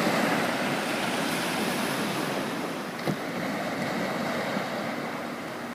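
Small waves breaking and washing up a sandy beach, a steady hiss of surf. A single small knock about three seconds in.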